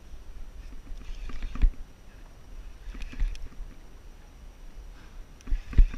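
Water slapping and sloshing against a plastic sit-on-top kayak's hull over a steady low rumble, with bigger splashes about a second and a half in and around three seconds, and the loudest knocks just before the end.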